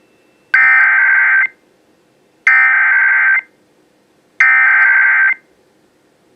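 Emergency Alert System SAME header: three bursts of shrill digital data tones, each about a second long and about a second apart. They encode the alert that follows, a National Weather Service severe thunderstorm warning.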